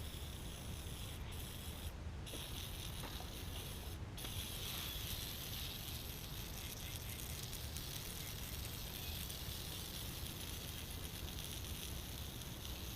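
Water spraying steadily from a hose into a cast-iron engine block, flushing crud out of the cooling jackets: a continuous hiss with no breaks.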